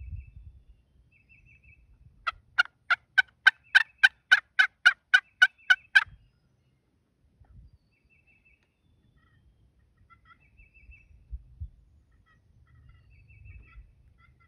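A loud series of about a dozen turkey yelps, evenly spaced at three to four a second, lasting about four seconds. A small bird chirps faintly in short bursts, and there is low rustling near the start and near the end.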